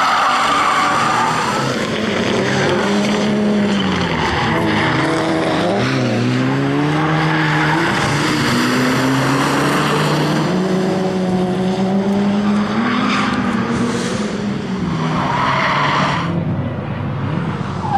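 Ford Focus RS Mk1's turbocharged four-cylinder engine driven hard, its revs rising and falling through the gears, with tyres squealing at several points as it corners.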